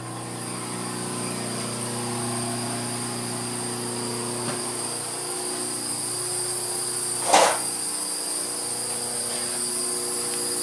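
A steady hum made of several held tones, including a high-pitched whine, with one sharp knock about seven seconds in.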